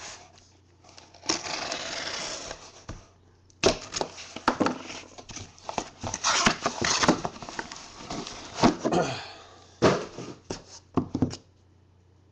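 Cardboard box being opened by hand: a long tearing scrape about a second in, then scraping, rustling and sharp knocks as the flaps are pulled open and the box inside is slid out and set down.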